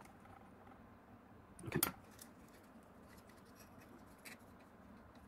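Faint handling sounds of a small screwdriver tightening a screw into the sheet-metal housing of a 3D printing module, with one sharp click about two seconds in.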